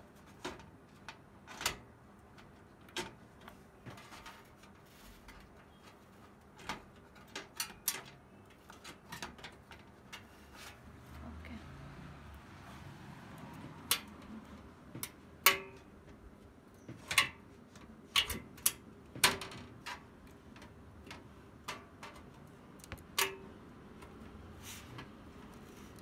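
Irregular sharp clicks, taps and knocks of a motherboard and its screws being handled and fitted into a metal PC case, a couple of the louder knocks ringing briefly.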